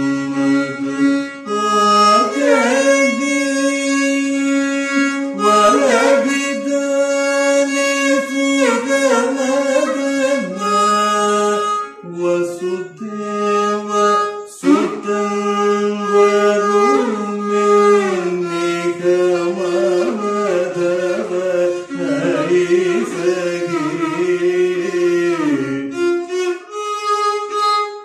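Solo violin playing a Carnatic melody in raga Neelambari. The melody slides and wavers between notes over steadily held lower notes.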